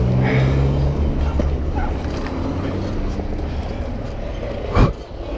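Road traffic passing while riding a bicycle along a busy street, with a car engine going by early on. A brief loud thump comes about five seconds in.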